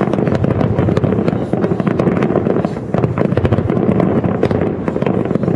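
Fireworks display: a dense, rapid barrage of aerial shell bursts, bangs and crackles following one another without a break, heavy in the low end.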